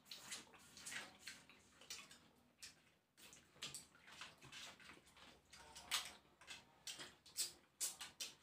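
Wet eating sounds up close: irregular lip smacks, sucking and small clicks of shell as crab and snails are picked apart and eaten by hand.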